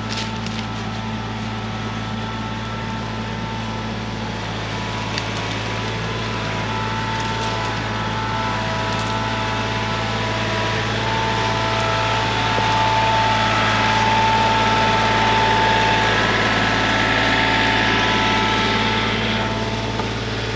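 An engine running steadily with a wavering whine above a low hum; it grows a little louder during the second half.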